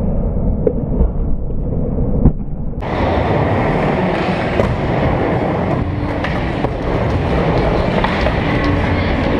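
Skateboard wheels rolling on a wooden skatepark ramp, a steady rumble with scattered clacks of the board and trucks, one sharp clack about two seconds in.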